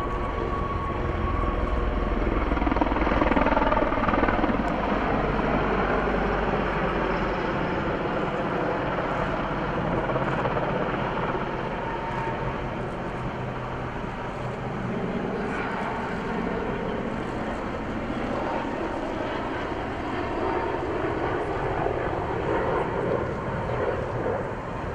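Mil Mi-26 heavy-lift twin-turbine helicopter flying, a continuous drone of rotor and turbine noise. It is deepest and loudest over the first seven seconds or so, then thins and wavers in pitch.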